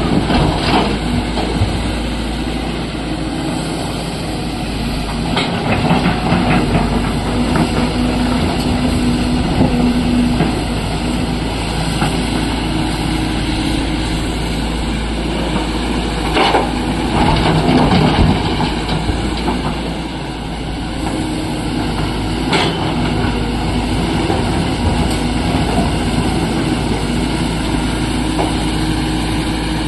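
SANY SY225C hydraulic excavator's diesel engine running steadily as it digs and loads broken rock. Several sharp knocks and clatters of rock against the steel bucket and truck body stand out above the engine, a few times across the stretch.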